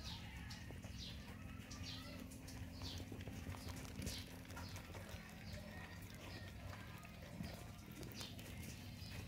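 Pet rats feeding from a dish: faint small clicks of chewing and scrabbling over a steady low hum, with several short, high chirps that fall in pitch, most of them in the first half.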